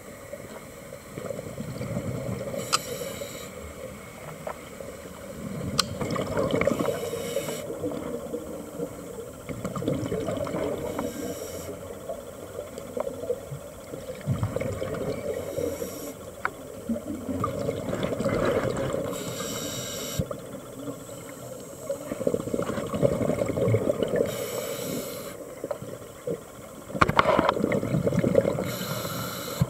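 Scuba diver breathing through a regulator underwater: a short hiss on each inhale alternating with a longer burst of exhaled bubbles, about every four to five seconds.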